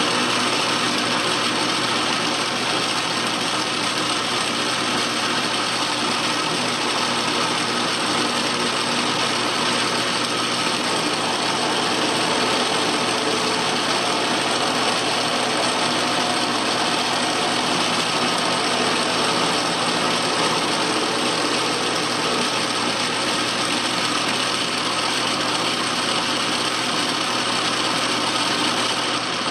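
Atlas metal lathe running steadily under power: a continuous mechanical whir from its drive and gearing, with several steady tones held throughout.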